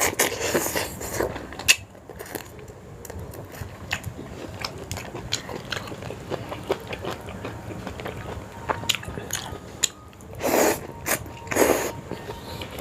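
A person eating Sarawak laksa, a noodle soup: chewing with many small sharp clicks throughout and two louder noisy bursts, each about half a second long, near the end.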